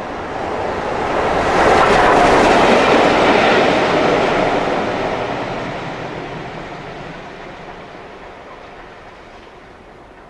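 BR Standard Class 4 2-6-0 steam locomotive 76084 and its coach passing close by, wheels running on the rails. The sound builds to its loudest about two seconds in, then fades steadily as the train draws away.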